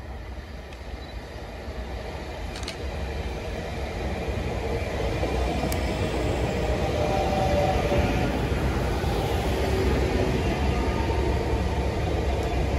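CP UTE electric multiple-unit passenger train approaching and passing close by, its rumble and wheel noise growing steadily louder as the carriages roll past.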